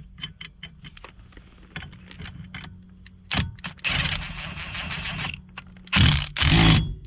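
Impact gun driving the steering hub bolt down: a few light clicks, a whir of about a second and a half, then two short loud bursts of hammering near the end as the bolt draws the hub flush.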